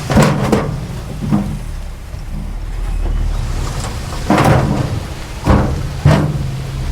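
Diesel engine of heavy earthmoving machinery running steadily, with about six sharp metallic clanks and knocks, a cluster near the start and three more in the second half.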